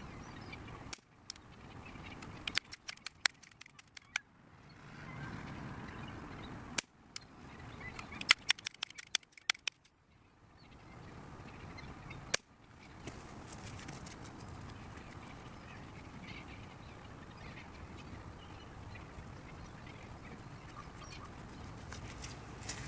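Sharp pops of a Crosman multi-pump pellet air pistol being fired, several times over, against outdoor background noise. The background stops and starts abruptly between short stretches.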